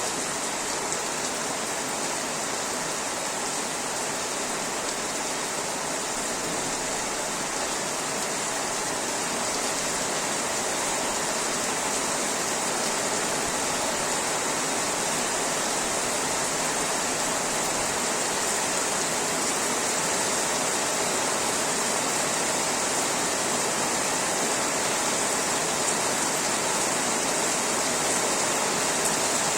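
Steady rain falling as an even, unbroken hiss, growing slightly louder.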